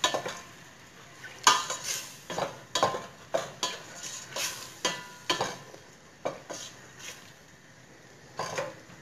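Wooden spatula stirring diced chicken in a stainless steel pot, scraping and knocking against the pot in irregular strokes, over a soft sizzle of the chicken frying in oil with soy sauce and vinegar.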